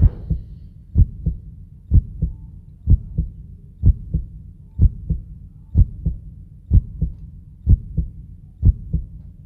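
Heartbeat: a steady double thump, lub-dub, about once a second, over a low steady rumble.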